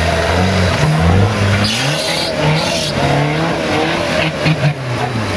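Off-road trial buggy's engine revving up and down as it works over logs in deep mud, its note rising and falling repeatedly. A rush of noise comes in about two seconds in.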